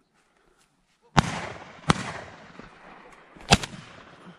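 Three shotgun shots, the first about a second in, the second under a second later and the third about a second and a half after that, each followed by a rolling echo.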